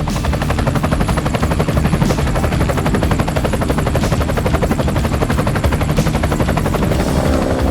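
A loud, rapid, steady chopping rattle of many even pulses a second, with no let-up, like a helicopter rotor or rapid gunfire.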